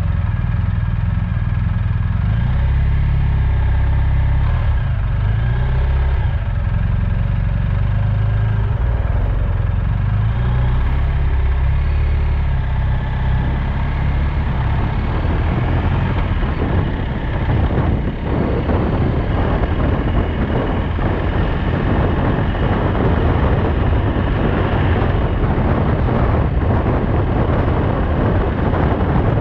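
Motorcycle engine idling at a standstill, then pulling away about halfway through, with wind rushing over the microphone as it gathers speed.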